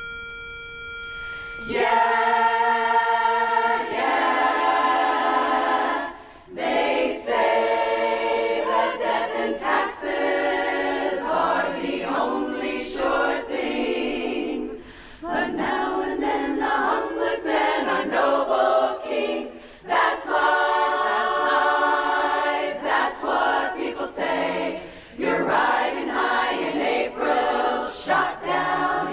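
A pitch pipe sounds one held starting note; about two seconds in, a women's barbershop chorus begins singing a cappella in close harmony, phrase after phrase with brief breaths between.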